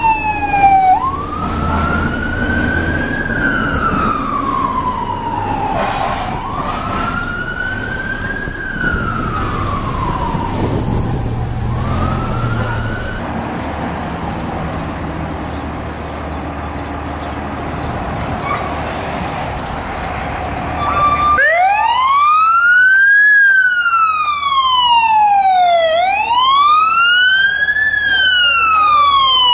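Fire engine wail sirens rising and falling over truck engine and street noise. First one siren cycles slowly, about every five seconds. After a quieter middle stretch with no clear sweep, a louder, cleaner wail sweeps up and down about every four seconds from about two-thirds of the way in.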